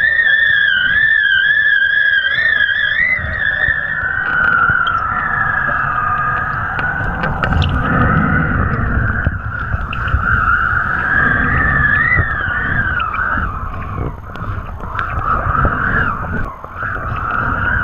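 Wind whistling across a pole-mounted action camera as a kiteboard planes over water: a high, wavering whistle that rises and falls in pitch with the gusts. Under it runs a rough rumble of wind buffeting and water rushing, which grows after a few seconds.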